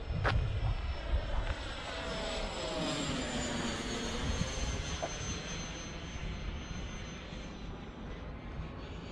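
Electric ducted fan of a Freewing A-4 Skyhawk 80mm EDF model jet whining as the jet flies past overhead, its high tone slowly falling in pitch as it goes by. A sharp click sounds just after the start, over a low rumble of wind on the microphone.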